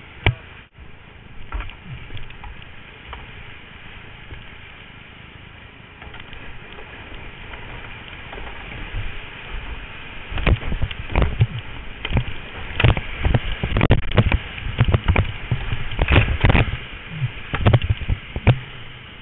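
Whitewater rapids rushing. From about ten seconds in, a kayak running the rapid adds frequent splashes and knocks of water hitting close to the microphone.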